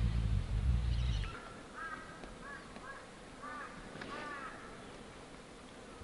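Wind buffeting the microphone as a low rumble that cuts off suddenly about a second in. A bird then gives a series of short calls in quick succession.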